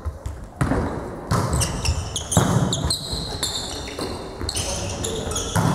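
Volleyball rally: several sharp hits of the ball on hands and forearms, with sneakers squeaking on the hall floor from about a second and a half in.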